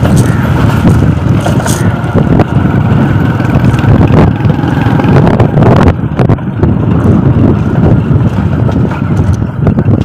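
Loud, steady low rumble of wind buffeting the microphone while the camera is carried outdoors, with a few scattered handling knocks.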